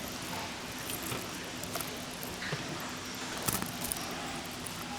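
Quiet scattered clicks and light taps of ingredients and utensils being handled at a mortar, over a faint steady hum.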